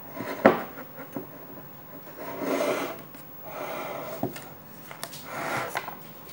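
Plastic bag and spoon handled over a glass mixing bowl of dough: a sharp knock about half a second in, then two longer spells of rustling and scraping, with a small tap between them.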